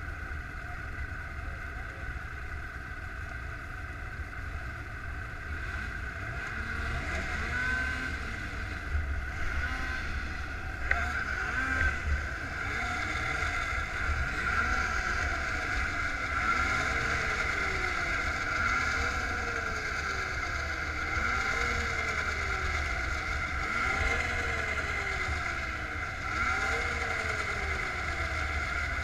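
Two-stroke race snowmobile engines running at idle in a staging line. From about seven seconds in, one engine is blipped every two to three seconds, its pitch jumping up and then sliding back down. A low wind rumble sits on the helmet microphone.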